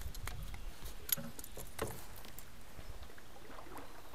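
Scattered light knocks and clicks of paddling a loaded canoe, the sharpest about a second in and again near the middle, over a low rumble of wind on the microphone.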